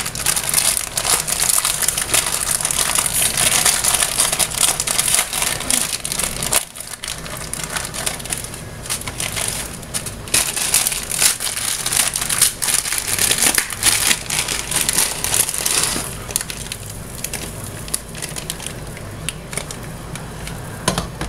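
Dense, continuous crackling, louder for the first sixteen seconds and then softer, with a brief break about seven seconds in.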